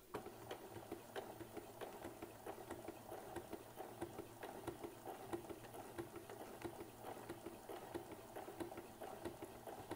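Janome Decor Computer DC3050 computerised sewing machine running at slow speed, free-motion stitching through a thick quilt sandwich: a steady motor hum with rapid, even needle clicking.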